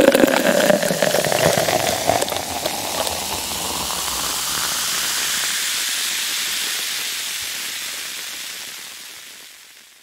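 Cold beer pouring into a glass: the stream splashes with a rising tone for the first two or three seconds, then stops. The foam head then fizzes with a steady hiss that slowly fades away near the end.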